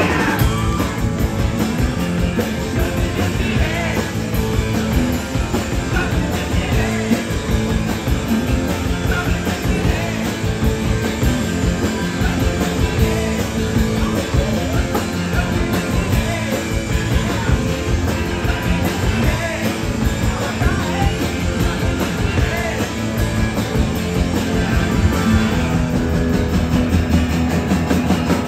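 Live rock band playing a cover of a glam-rock song: a male singer singing into a handheld microphone over drums, electric bass and keyboard, with a steady driving beat.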